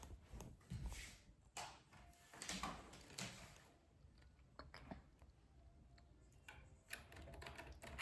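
Near silence with faint, scattered clicks and brief rustles.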